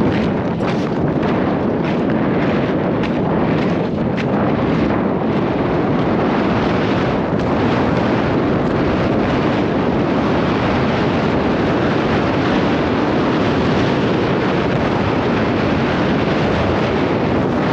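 Strong wind buffeting the camera microphone, a loud, steady rumbling roar.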